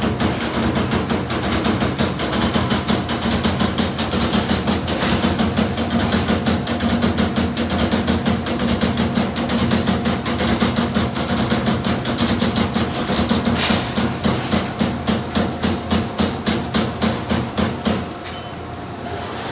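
LVD Strippit CNC turret punch press punching sheet steel: a rapid, even series of punch strokes, several a second, over a steady hum. The strokes space out a little near the end and stop about 18 seconds in.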